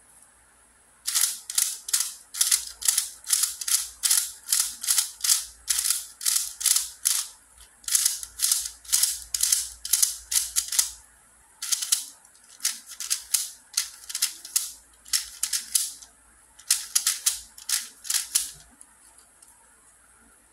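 Plastic layers of a YongJun Tick Cage puzzle cube being turned by hand in quick succession: sharp clacking and rattling turns, about two a second, with a few short pauses.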